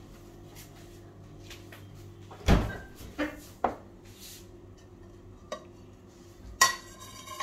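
Separate kitchen knocks and clatters: a refrigerator door shutting with a dull thump about two and a half seconds in, a few lighter knocks, then a ringing clink of a ceramic plate against a glass bowl near the end.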